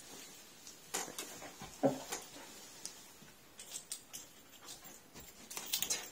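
Quiet room with faint, scattered taps and rustles as a poodle moves about and noses at a cat in a wicker basket bed, with one brief louder sound about two seconds in.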